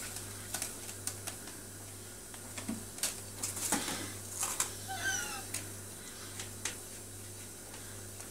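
Kittens playing on a scratching post: scattered light scratches and clicks of claws and paws, with one short kitten meow about five seconds in.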